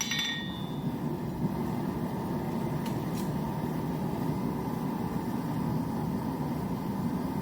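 A steady low rushing hum of running shop equipment, with the ring of a last hammer blow on the anvil fading out in the first second and two faint clicks about three seconds in.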